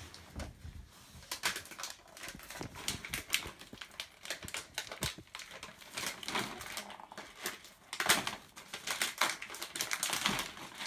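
Wrapping paper being torn and crinkled as a present is unwrapped: irregular crackles and short rips, busiest around six seconds in and again from about eight seconds.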